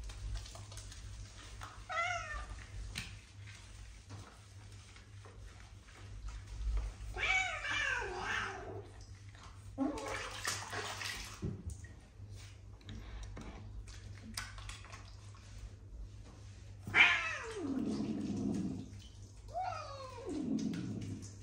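Cat meowing while being bathed: several drawn-out meows, most falling in pitch, the two loudest near the end.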